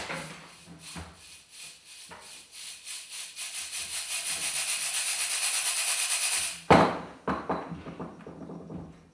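Rattling percussion in quick, even pulses, growing steadily louder for several seconds, then a single loud hit about two-thirds of the way through, followed by a few softer knocks that fade.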